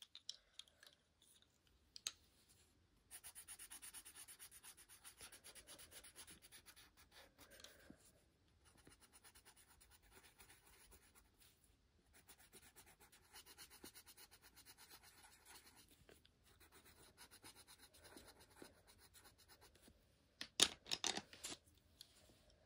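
Coloured pencil scratching on coloring-book paper in quick back-and-forth shading strokes, faint and even, with short pauses and a few sharp clicks near the end.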